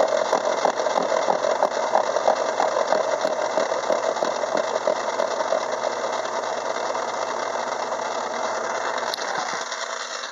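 Craftsman 6-inch metal lathe running, its spindle driving a gear cutter through a steel change-gear blank: a steady hum with a fast rattle of tooth cuts. The rattle eases after about six seconds, and the hum drops away about nine and a half seconds in as the lathe winds down.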